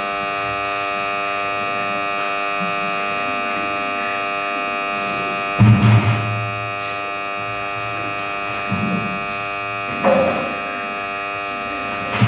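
Ceiling fan motor running with a steady electric hum of several fixed tones and a high whine. A few brief low thumps break in, the loudest about halfway through.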